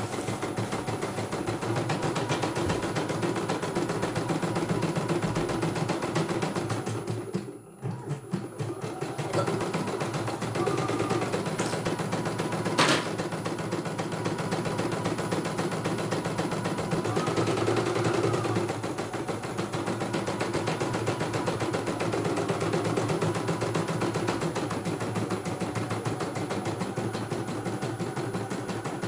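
CNY E900 home embroidery machine stitching a design: a fast, steady rattle of needle strokes. It pauses for about a second a quarter of the way in, and there is one sharp click soon after.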